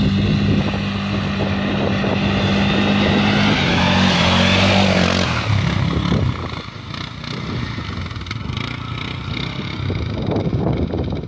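Arctic Cat XR 700 ATV's single-cylinder engine running under throttle as the quad drives through a water-filled ditch, with water splashing. The engine is loudest as it passes about five seconds in, its pitch dropping, then fades as it moves away.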